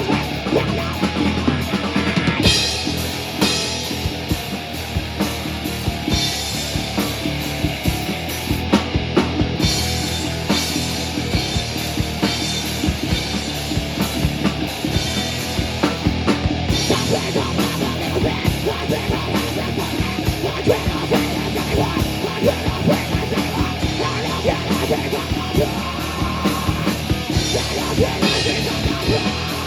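A rock band playing live, with drum kit and distorted electric guitar, loud and continuous.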